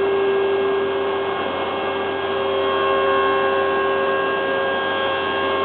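Woodworking machinery running steadily: an even mechanical hum with several steady tones, a higher one joining about halfway through.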